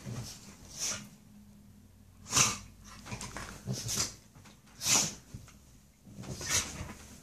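Pit bull-type dog snorting and huffing in short, sharp bursts, one every second or so, while play-fighting with a cat; the loudest snorts come a little over two seconds and about five seconds in.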